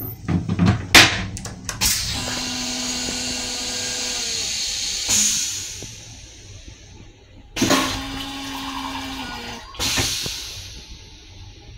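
Long Island Rail Road M7 railcar toilet flushing: after a few clicks and knocks from the toilet seat, a steady mechanical hum runs for about three seconds, then three sudden surges follow, the last with water running into the stainless steel bowl and fading away.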